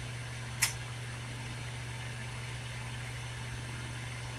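Steady hiss of a large lampworking torch flame heating clear borosilicate glass, over a low steady hum, with one short click about half a second in.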